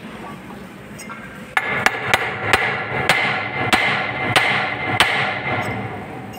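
Hand hammer striking metal in a quick run of ringing blows, about three a second, starting about a second and a half in, tapping a bearing down onto a pump motor shaft to seat it.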